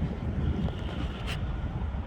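Low, steady rumble of wind buffeting the microphone, with one brief faint tick a little over a second in.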